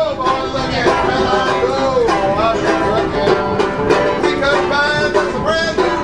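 Country music led by a plucked banjo, playing steadily.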